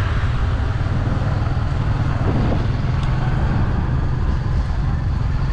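A small motor vehicle's engine running steadily while riding along, under a constant low rumble of wind on the microphone.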